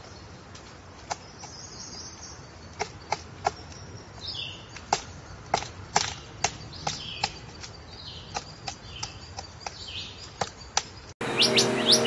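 Pileated woodpecker chiselling into a tree trunk: single hard pecks on wood, irregular, about two a second. About a second before the end it cuts abruptly to louder, bright songbird song.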